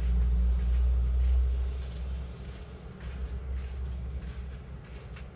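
Deep vehicle engine rumble, loud for about the first two seconds and then fading away.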